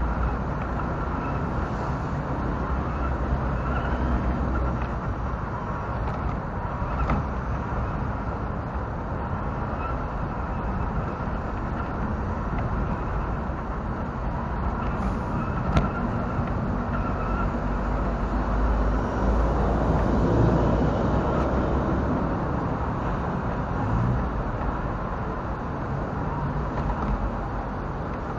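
Steady running rumble and rattle of a radio-controlled Tamiya Toyota Land Cruiser 40 model car driving over paving stones, heard through a camera mounted on the car itself, with a single sharp click about halfway through.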